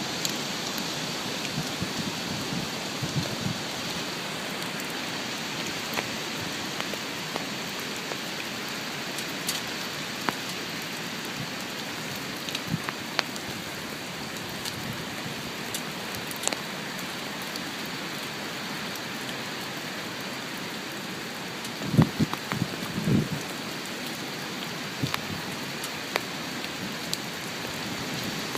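Heavy hurricane rain falling steadily, with scattered sharp drops ticking close by. A few brief low thumps come through about three-quarters of the way in.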